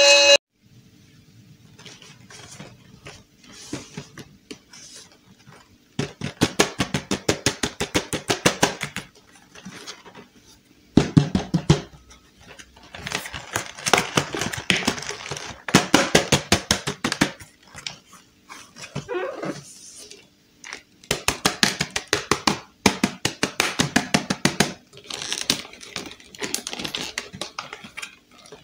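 Fingers tapping and scratching on toy boxes' clear plastic windows and cardboard, in bursts of rapid taps lasting a few seconds each, with quieter pauses between.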